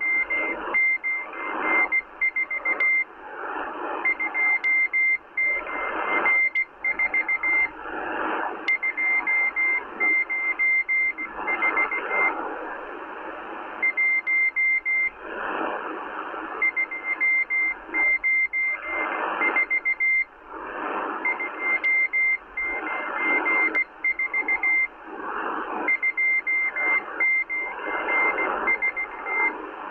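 Morse code from the M12 Russian spy station received on shortwave through a Kenwood R-1000 receiver: a single high-pitched beep keyed on and off in dots and dashes, with short gaps between groups, over shortwave static that swells and fades.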